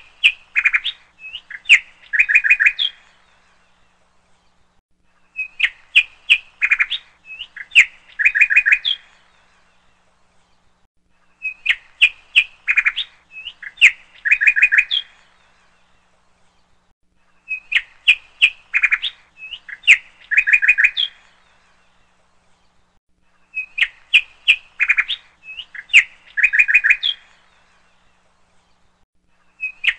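Bird chirping: the same phrase of a few sharp chirps followed by a quick trill repeats about every six seconds, with short quiet gaps between.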